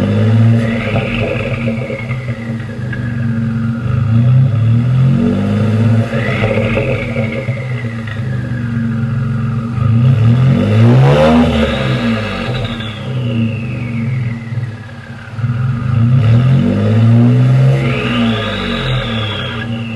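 Ford F-150's 2.7L twin-turbo V6 free-revved about four times through an SPD Performance downpipe and whistler cat-back exhaust, each rev rising and falling. Each rev carries a high whistle that climbs and fades with it.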